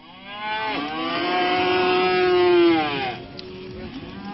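An Aubrac cow mooing: one long, loud call of about three seconds that rises in pitch at the start and falls away as it ends.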